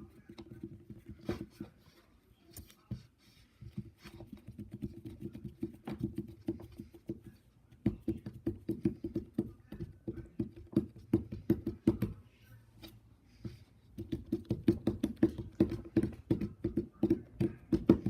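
Slime being squished and kneaded by hand, giving rapid wet clicks and pops in runs of several seconds with brief pauses.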